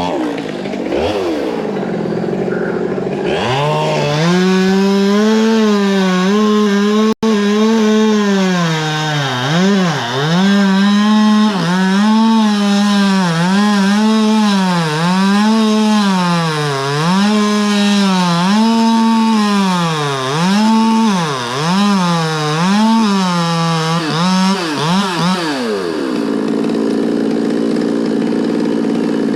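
Chainsaw cutting through melaleuca timber. The engine revs up within the first few seconds, then holds high with repeated short dips as the chain bites and loads in the cut. Near the end it drops back to idle.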